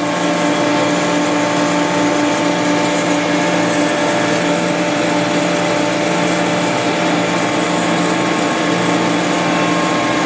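Steady running noise of screw refrigeration compressor machinery: a continuous hum with several steady tones over an even hiss, holding a constant level.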